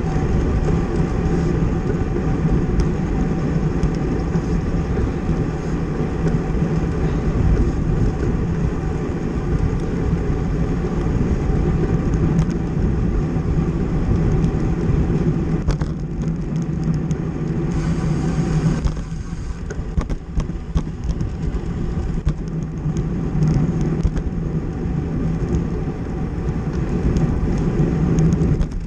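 Steady rush of wind and rolling noise from a road bicycle moving at racing speed in a criterium, heard from a camera riding with the pack. About two-thirds of the way through the low rush eases for a moment.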